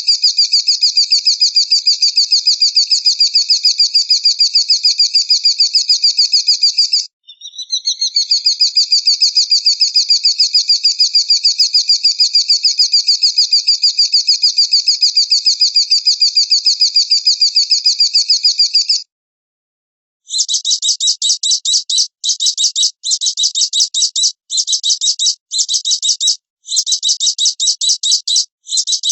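A songbird's very fast, high-pitched trill of evenly repeated notes, held for many seconds at a time. It breaks off briefly about a quarter of the way in, stops for about a second past the middle, then returns as a string of short trilled bursts.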